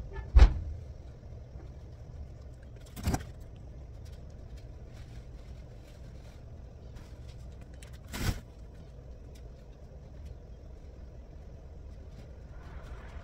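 Dull thumps inside an empty metal cargo van as moving blankets are thrown onto its floor: a loud one about half a second in, softer ones about three and eight seconds in, over a steady low rumble.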